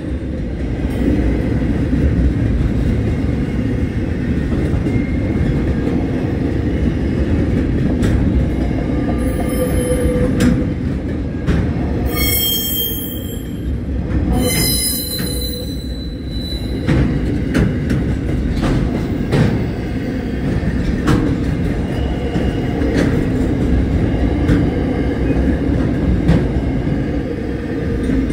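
Container freight train rolling past: a steady rumble of wagons on the rails, with clicks from wheels passing over rail joints and short high wheel squeals now and then.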